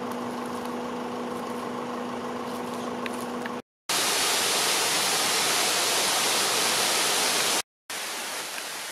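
Steady outdoor background hiss in three takes cut together, with a short dropout at each cut. The first take carries a steady low hum under the hiss. The middle take is a louder, brighter hiss.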